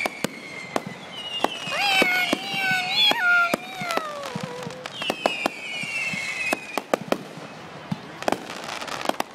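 Fireworks going off, a steady scatter of sharp bangs and pops of differing loudness, some close and some farther off. A high wavering tone runs from about two seconds in, and a falling whistle-like tone follows about five seconds in.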